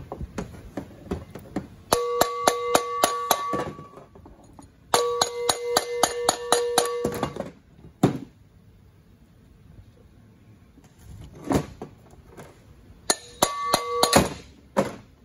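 A plastic-headed mallet rapidly tapping the steel shaft of a 48RE transmission drum assembly, in three quick runs of about six blows a second. The metal rings on a steady pitch with each run, and a few single knocks fall between the runs.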